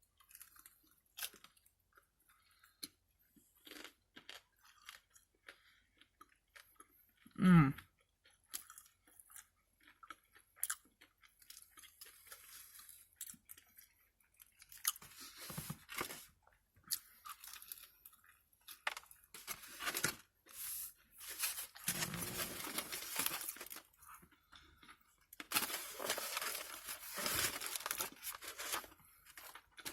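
Close-up eating sounds: chewing and crunching with scattered mouth clicks and smacks, and rustling of the food wrapping, busiest in the second half. A short hummed vocal sound about seven and a half seconds in is the loudest moment.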